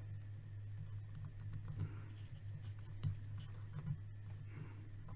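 Faint clicks and scrapes of Lego-compatible plastic building bricks worked in the hands, as a stuck axle peg is pried at, over a steady low hum.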